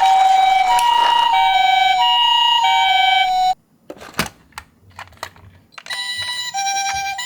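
Toy ambulance's electronic two-tone siren, alternating a higher and a lower tone in the Japanese ambulance 'pee-po' pattern. It cuts off abruptly about halfway through, leaving a few clicks and a knock, then starts again, a little quieter, near the end.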